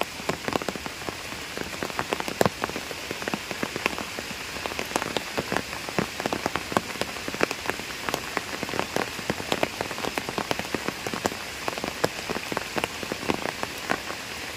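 Steady rain falling on a pond's surface, with a dense, irregular patter of sharp close drop ticks.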